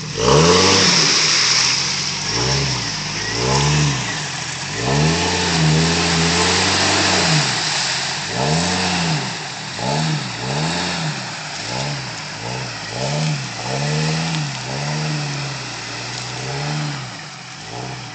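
Lifted Jeep Cherokee XJ's engine revved up and down a dozen or so times, one rev held longer, as it spins its tyres through mud and water in two-wheel drive. A hiss of tyres and spraying mud runs under the revs, loudest in the first second or two.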